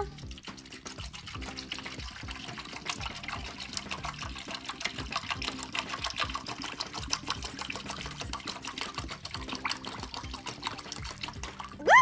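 Water poured in a steady stream into a plastic toy bathtub, splashing as it fills, over quiet background music.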